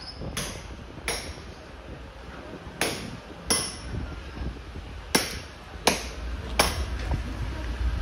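Seven sharp knocks, mostly in pairs with short pauses between them, over a steady low street rumble.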